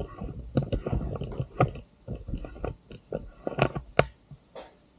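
Irregular clicks and knocks of a jointed camera mount arm being handled and a piece taken off it.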